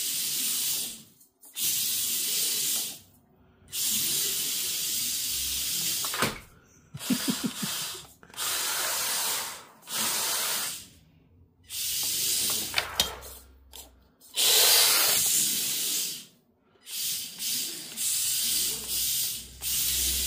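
WLToys K969 mini RC drift car driving and drifting in bursts of throttle. Its small electric motor and gears whir high-pitched in spurts of one to two seconds, with short pauses between. A few sharp knocks come around the middle.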